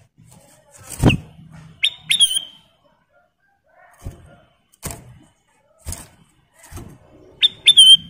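Caged ruby-throated bulbul (kutilang emas) giving short, sharp whistled chirps in pairs, about two seconds in and again near the end, where they are loudest. Between them come knocks of the bird hopping onto its perch and cage, the first, about a second in, a loud thump.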